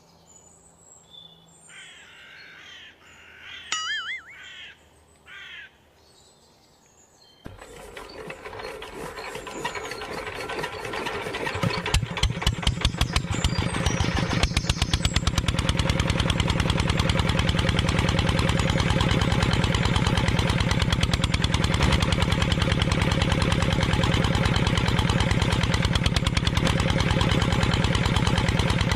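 Birds chirp for the first few seconds. About seven seconds in, a small diesel engine starts suddenly, picks up over several seconds, and then runs steadily with fast, even firing strokes.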